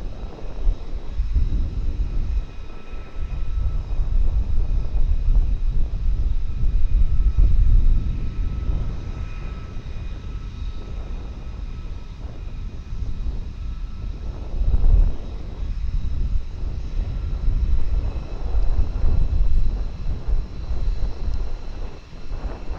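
Fighter jet engines running in a deep rumble with a faint steady whine above it. The rumble swells and fades, loudest from about four to eight seconds in and again briefly about fifteen seconds in.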